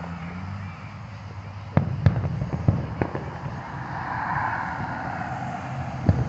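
Aerial firework shells bursting in the sky, with a cluster of sharp booms about two to three seconds in and another near the end.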